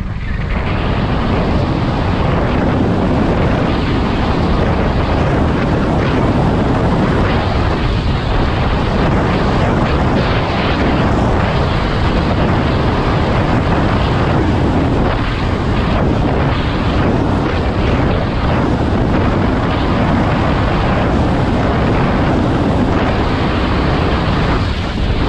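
Wind buffeting the helmet-mounted camera's microphone while riding an electric scooter at speed: a steady, loud rushing noise with no breaks.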